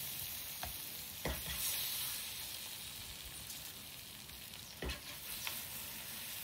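A hot pan of sautéed peppers and zucchini sizzling steadily, with a few knocks of a plastic spoon as the vegetables are scooped out onto parchment paper.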